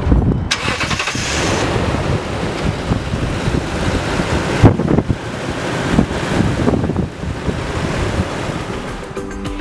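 The 2011 Toyota Tundra's 5.7-litre V8 running with the hood open, a steady rumble heard from over the engine bay.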